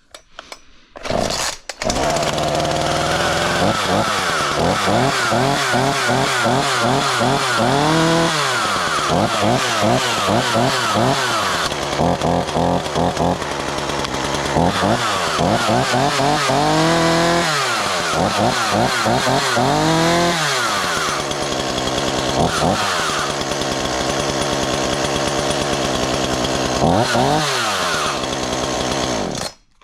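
Ryobi RY3716 37cc two-stroke chainsaw on a cold start. It fires briefly, then catches about two seconds in and runs, revved up and down several times. It cuts off abruptly near the end.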